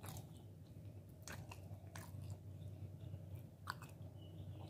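Close-up chewing of rice and pan-fried chicken eaten by hand, with a few short wet mouth clicks about a second apart, over a low steady hum.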